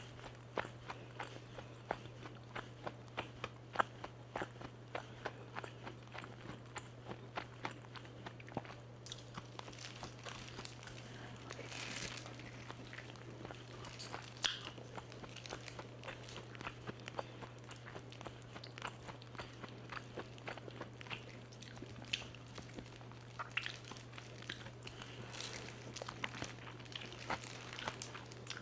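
Close-miked crunching and chewing of crispy-coated fried chicken. Rapid crunches come thick and fast at first, then give way after about nine seconds to sparser, sharper crackles. A steady low hum runs underneath.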